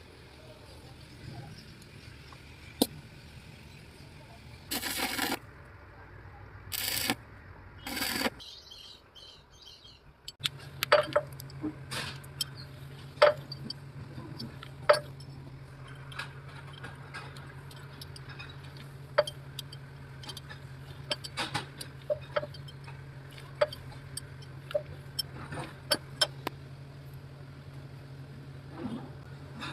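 Hand tools working on a broken engine-mount bolt: repeated sharp metal clinks and taps, with three short, loud, noisy bursts about five to eight seconds in. A steady low hum comes on about ten seconds in and runs under the clinks.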